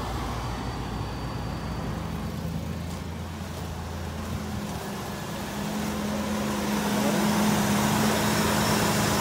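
Ford Explorer engine idling steadily with the air conditioning switched on at max, getting louder about seven seconds in.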